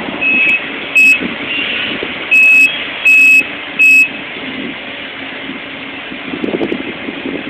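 A heavy-equipment backup alarm beeps loudly about five times in the first four seconds, a single high steady tone, over the running engine of the demolition excavator; then the beeping stops and the engine carries on, with a brief rattle near the end.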